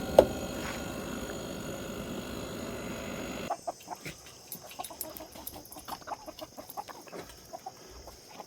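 A sharp click, then a steady running hum. About three and a half seconds in, the hum cuts out and laying hens cluck repeatedly in short, scattered calls.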